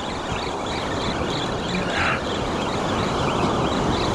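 Steady rush of breaking surf and wind on the microphone.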